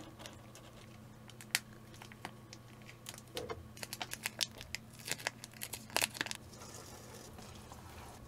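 Plastic liquid-soup sachets crinkling and tearing as they are opened and squeezed into instant ramen cups: a scatter of small crackles and ticks. Near the end a faint steady hiss as hot water starts pouring from an electric kettle.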